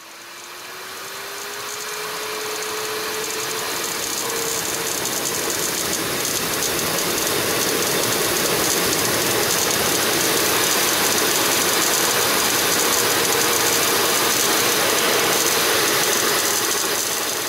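Air jet hissing through a small 3D-printed axial turbine, with a thin whine that rises in pitch over the first few seconds as the rotor spins up, then holds steady under a loud, even hiss.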